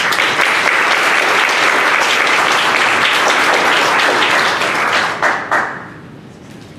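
Audience applauding. The applause starts at once, holds steady, and dies away after about five seconds with a few last claps.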